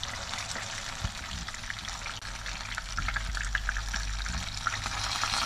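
Masala-coated fish slice shallow-frying in hot oil: a steady sizzle with crackling pops as it is pressed down with a steel spoon to drive out its water. The sizzle grows a little louder partway through.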